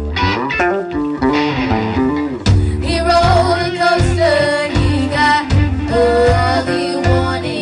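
Live band playing: an electric guitar plays a run of single notes, then about two and a half seconds in the drums and bass come in with a steady beat and female vocals sing over them.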